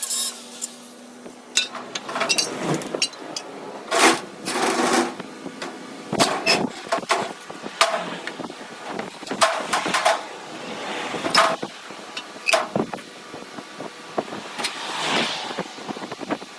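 Irregular knocks and clanks of steel being struck and handled, several leaving a short metallic ring, with a brief hiss about fifteen seconds in.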